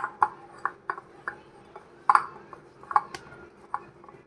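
Raw mango pieces being mixed with spices in a bowl: a utensil knocking and scraping against the bowl in a string of irregular clicks, the loudest about two seconds in.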